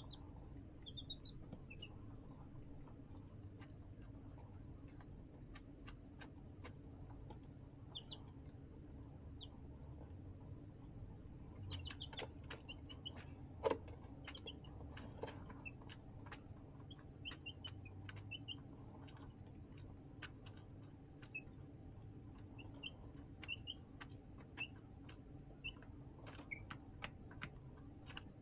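Baby chicks peeping in short, high chirps now and then, with scattered light taps and clicks and one sharper tap about halfway through, over a low steady hum.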